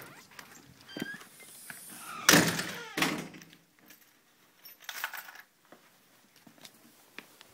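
Front door being opened by its brass knob: a click as the knob and latch turn, then a loud knock as the door comes open, another knock about a second later, and a few fainter knocks and rustles after.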